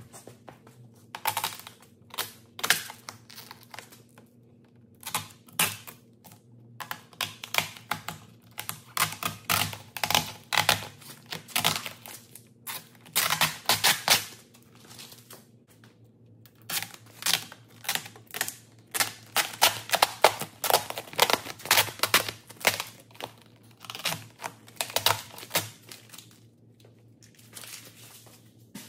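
Xpel Tracwrap, a clear temporary adhesive film, being peeled off a carbon-fibre mirror cap and crumpled in the hand, in irregular bursts of crackling and rustling with short pauses between pulls. A faint steady low hum lies underneath.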